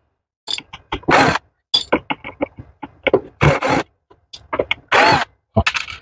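Cordless drill driver run in short trigger bursts, three brief spins with a rising and falling pitch and quick clicks and rattles between them, as it backs out screws holding a home espresso machine's thermoblock.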